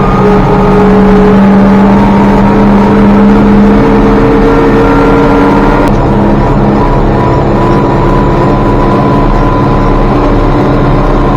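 International 1086 tractor's diesel engine running steadily under load while pulling loaded grain wagons, heard from inside the cab, with a slight change in engine pitch about six seconds in.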